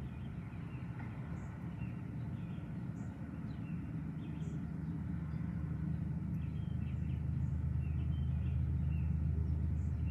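Low rolling thunder, a deep rumble that swells over several seconds and is loudest near the end. Birds chirp throughout.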